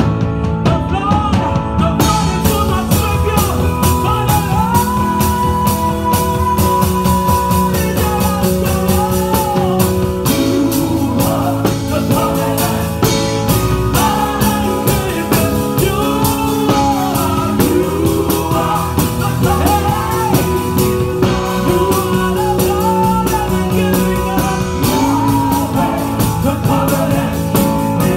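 Live church worship song: singers' voices carrying a melody over a band with a steady beat.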